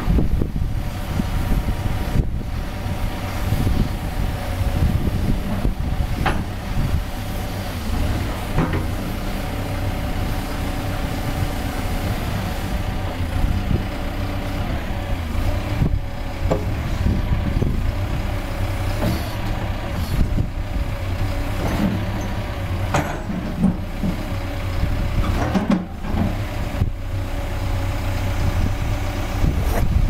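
Caterpillar 420F backhoe loader's diesel engine running steadily, with a few short knocks.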